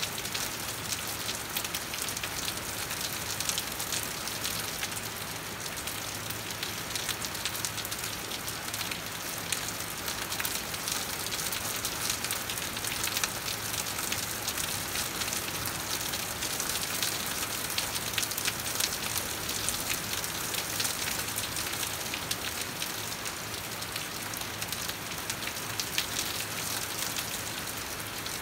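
Steady rain falling, with many individual drops clicking close by over a constant hiss.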